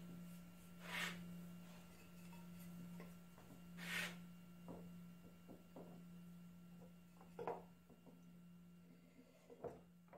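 Faint handling noises at a workbench: a few soft rubs and several light taps over a steady low hum.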